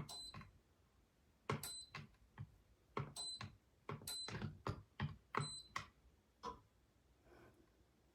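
Five short, high electronic beeps spread over about six seconds, each starting with a click, with other light clicks and knocks in between.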